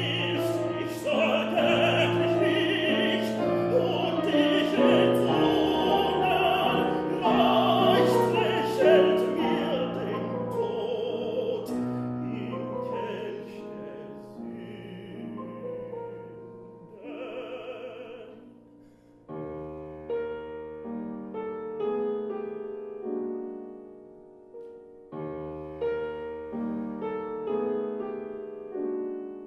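Classical tenor singing a German art song (lied) with piano accompaniment, the voice wavering with vibrato. Over halfway through the voice stops and the piano goes on alone.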